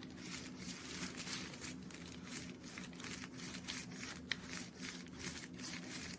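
Rolling knife sharpener's ceramic honing wheel rubbing back and forth along a steel kitchen knife's edge: a faint, gritty scraping made of quick, uneven strokes, with one sharper tick about two-thirds of the way through.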